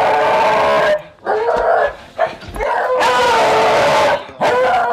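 Beagles baying: long, wavering howls, several in a row with short breaks between them.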